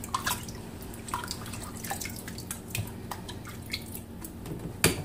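Water splashing and dripping as hands lift rinsed pieces of beef liver out of a bowl of water onto a glass plate, in scattered small splashes, with one sharper knock near the end.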